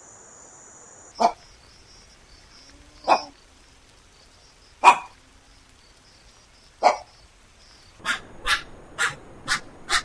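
Bare-throated tiger heron calling: four short loud calls spaced about two seconds apart, then a quicker run of calls at about two a second near the end.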